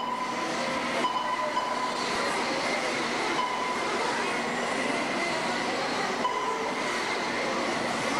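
Radio-control off-road cars racing on a dirt track: a steady wash of motor and gear whine with tyre noise. A high steady tone breaks in and out for about half a second at a time, every couple of seconds.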